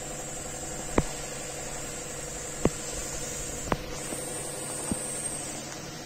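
Arashi AR-228 mini ceiling fan running: a steady hum with a high hiss, broken by four sharp clicks at uneven intervals.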